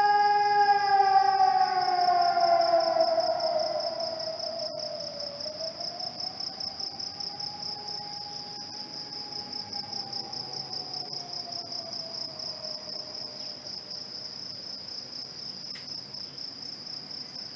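Civil defence siren winding down in pitch, swelling back up about eight seconds in, then sliding down again and fading out. This is the commemorative siren sounded across Cyprus at dawn every 20 July. Under it runs a steady, fast-pulsing high insect trill.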